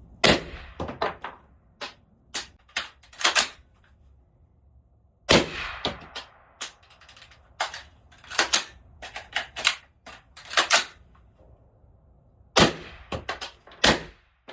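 5.56 rifle fired rapidly through a .45-calibre suppressor with 55-grain ammunition: three strings of suppressed shots with short pauses between, each shot cracking and echoing in a building.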